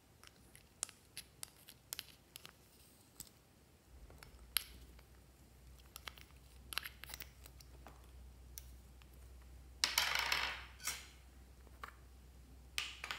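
Metal spatula scraping slime out of a small plastic pot: a scatter of sharp clicks and scrapes as the blade knocks against the pot's rim and walls, with one longer, louder scrape about ten seconds in.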